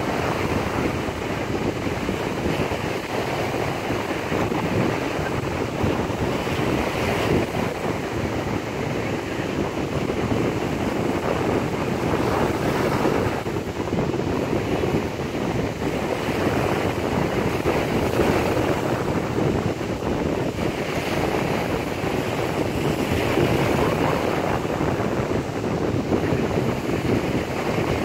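Sea surf washing onto a sandy beach, mixed with wind buffeting the microphone: a steady rushing that swells and eases every few seconds.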